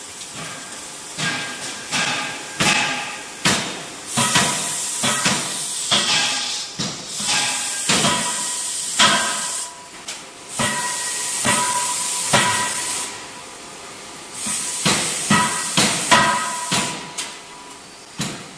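Anyang C92K CNC fully hydraulic closed die forging hammer forging hot steel in the die: a run of heavy, irregular blows with metallic ringing after them, and bursts of hiss between the blows.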